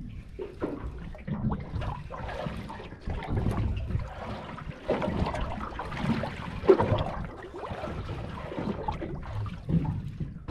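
Water splashing and sloshing against a small boat, with irregular knocks and thumps from handling on board; the loudest knock comes a little before seven seconds in.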